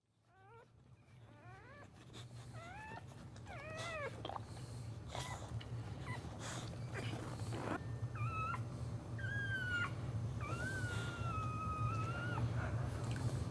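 Boxer whining and whimpering in labour while delivering a puppy: a run of short rising-and-falling whimpers, then longer, drawn-out whines near the end, over a steady low hum.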